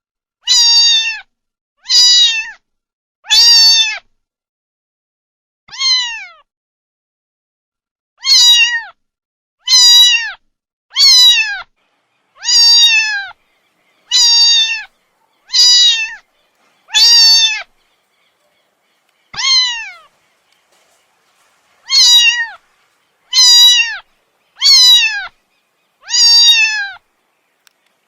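Kitten meowing over and over: about sixteen short calls, each falling in pitch and near-identical, evenly spaced with a few longer pauses.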